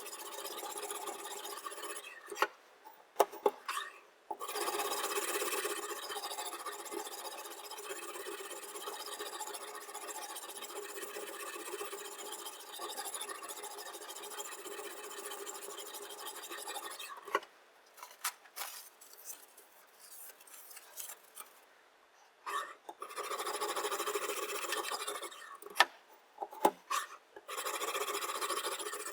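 Sharpening stone rasping along a chef knife's steel edge in long, sustained passes, broken by short pauses with sharp clicks and knocks.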